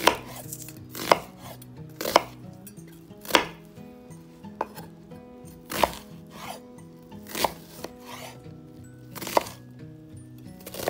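A large kitchen knife chopping a white onion on a bamboo cutting board: separate sharp knocks of the blade meeting the board, about one a second.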